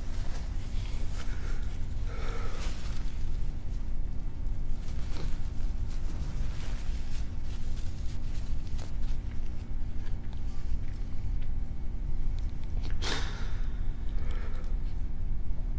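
A man weeping close to a microphone: scattered sniffs and sharp breaths, the loudest about 13 seconds in, over a steady low hum from the sound system.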